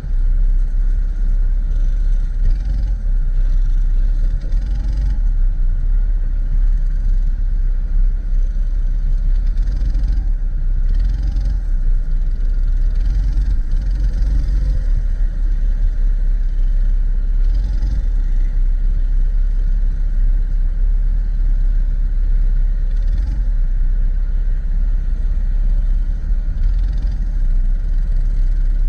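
80cc racing kart engine running steadily at race pace, heard on board, under a heavy low rumble with faint intermittent clatter.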